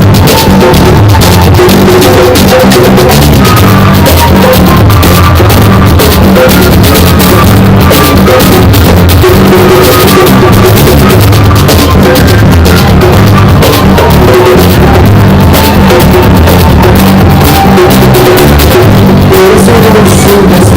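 Live band playing an instrumental stretch with drum kit and bass, recorded on a mobile phone at a level so high that the sound is heavily distorted.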